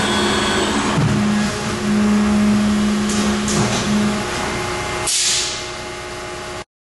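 HMT 3.0ECNC hybrid CNC tube bender running through a bend cycle: a steady machine hum with a drive tone that starts and stops, a few short hisses, and a louder burst of air hiss about five seconds in. The sound cuts off abruptly near the end.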